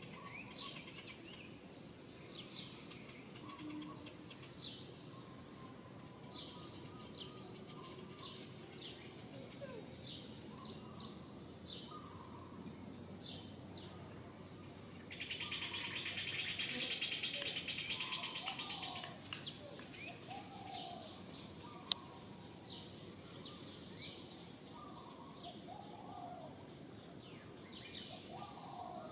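Many short, high bird chirps, each sliding down in pitch. About halfway through, an insect's buzz swells in for some four seconds and is the loudest sound. A single sharp click comes a little later.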